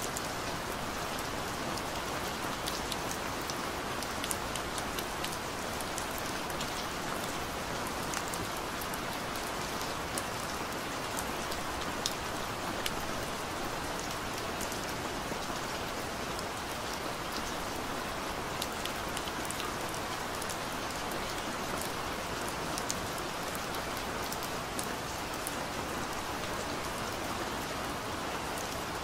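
Steady rain: an even hiss with many scattered sharp ticks of individual raindrops.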